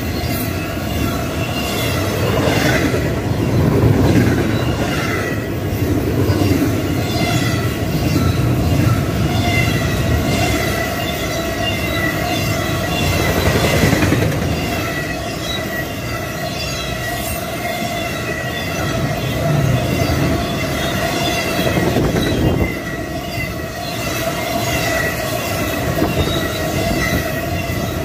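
Fast intermodal freight train of double-stack container cars and trailer-carrying spine cars passing close by. The steel wheels rumble and rattle steadily on the rails, with a continuous high-pitched squeal over them.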